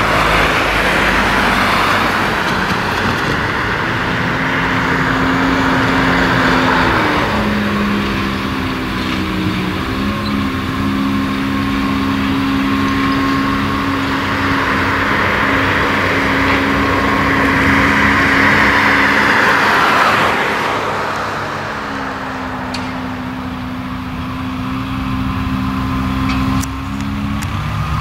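Tractor engine running steadily under load while driving a flail mower through tall grass and weeds. The whirring hiss of the cutting rotor swells and eases twice, and the engine note shifts slightly a few times.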